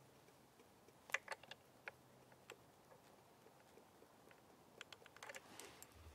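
Paintbrush dabbing on the painting panel: a few small sharp taps about a second in, two more single ones, and a quick run of them near the end, over near silence.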